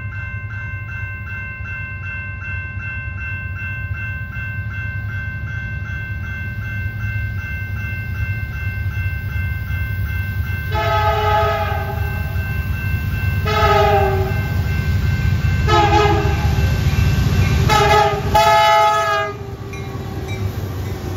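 Grade-crossing bell ringing rhythmically over the rising rumble of an approaching diesel freight train. About 11 seconds in, the lead locomotive's multi-note air horn sounds the crossing signal in four blasts, the first and last held longest, and the horn cuts off as the locomotives reach the crossing.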